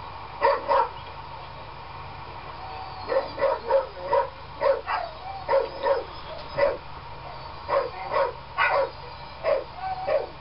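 A dog barking repeatedly in short barks. There are two barks near the start, a pause of about two seconds, then a steady run of about two barks a second.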